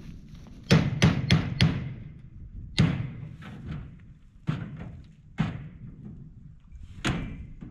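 Hammer blows on the wooden frame of a rabbit tractor: four quick strikes about a second in, then single strikes every second or two.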